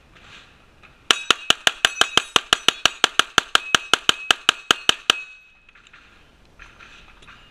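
A handgun fired in a fast string of about two dozen shots over roughly four seconds, with steel targets ringing as they are hit; the ringing lingers briefly after the last shot.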